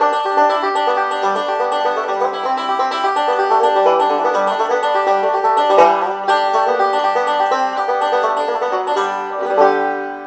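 Goldstar GF-100FE five-string banjo with a Snuffy Smith Style 2 compensated bridge, picked in a fast bluegrass run of quick notes. Near the end it stops on a chord that is left to ring and fade.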